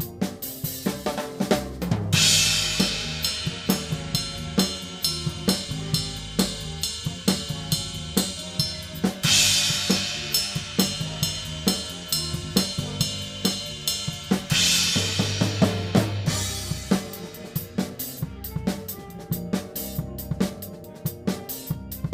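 Drum kit playing big band music: a busy run of snare, bass drum and hi-hat strokes, with three big cymbal crashes that ring on, about two seconds in, near nine seconds and near fifteen seconds.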